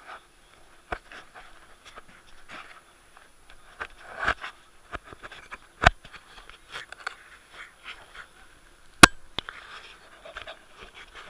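Handling noise on an action camera's microphone: rustling and scraping, with several sharp knocks, the loudest about nine seconds in.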